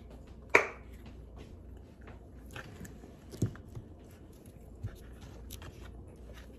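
A child eating bacon: small biting and chewing clicks with a few soft knocks. One short, sharp, loud noise about half a second in.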